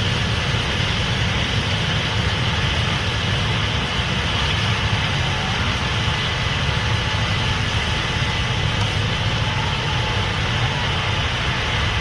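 Case IH 8250 Axial-Flow combine running steadily while harvesting corn: a constant low diesel engine rumble with the whir and hiss of the threshing machinery.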